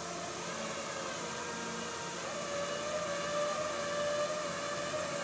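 Flatbed tow truck's winch running with a steady whine that comes in about two seconds in, as the wrecked car is pulled toward the tilted bed, over a steady outdoor hiss.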